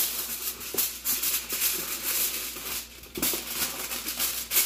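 Aluminium foil being handled and crinkled: a dense run of fine crackles, with a short lull about three seconds in.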